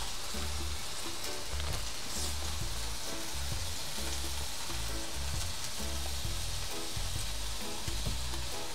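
Meat sizzling steadily on a barbecue grill, a continuous crackling hiss. Background music with a repeating bass line plays underneath.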